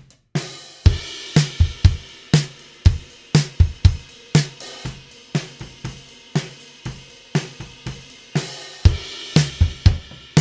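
A drum kit played in a steady groove, heard through the overhead microphones alone, with hits about twice a second. It starts after a brief gap with a crash cymbal, and another crash comes near the end.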